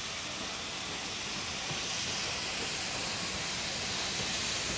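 Steam locomotive drifting slowly towards the platform with a steady hiss of steam, growing gradually louder as it nears.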